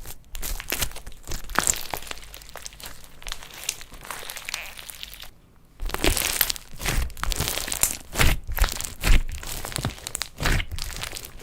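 Slime being squeezed and pressed by hand, with irregular crinkling, crackling and popping. There is a short lull about five and a half seconds in, then louder pops.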